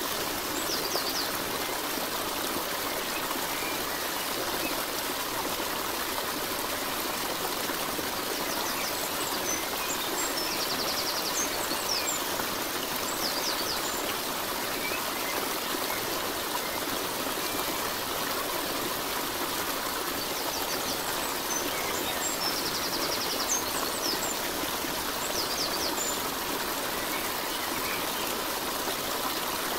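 Steady rushing of a flowing stream, with short high bird chirps and a brief trill breaking in every ten seconds or so: a nature-sound backing track.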